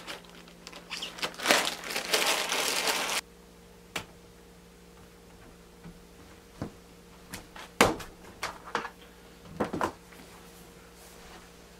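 Crinkling and rustling of handled material that stops abruptly, then a few scattered knocks and clicks, one louder than the rest, over a faint steady hum.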